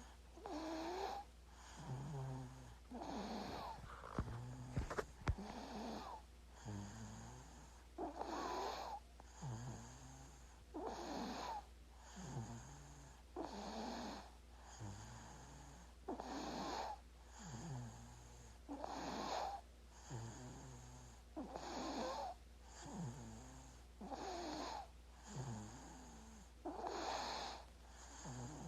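A sleeping baby snoring, with one snoring breath roughly every two and a half to three seconds over a steady low hum. A few brief clicks sound about four to five seconds in.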